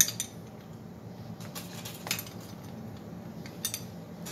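A steel wrench clinking against bolts and the metal engine case while a case bolt is wrenched loose: a few sharp metallic clicks, one at the start, one about two seconds in and a quick pair near the end.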